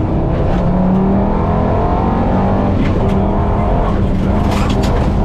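Rally car engine accelerating hard, heard from inside the cabin. Loose gravel clatters against the car's underside a few times, most clearly near the end.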